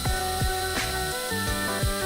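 Background music with a steady electronic kick-drum beat and a stepping synth melody.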